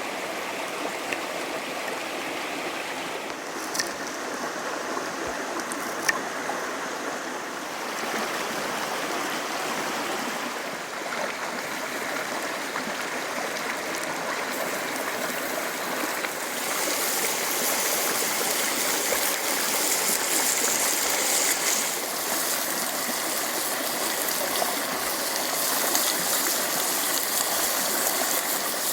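Creek water running steadily, with a couple of sharp clicks in the first several seconds. A brighter hiss joins about halfway through, and the sound gets a little louder.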